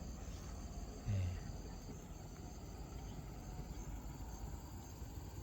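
Insects trilling steadily in thin high tones, with a brief low voice sound about a second in.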